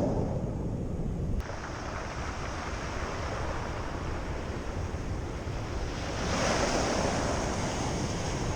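Sea waves washing onto the shore, with wind rumbling on the microphone; a wave surges up about six seconds in and falls back.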